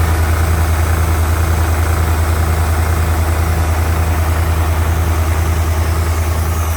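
Atlas Copco XAS 350 air compressor's Deutz diesel engine idling, a loud, even low throb.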